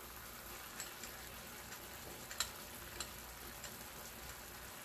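Chopped steak and onions frying in a skillet: a faint, steady sizzle with a few small ticks and pops.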